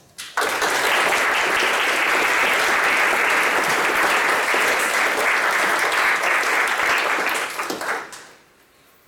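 Audience applauding: dense clapping that starts abruptly and dies away about eight seconds in.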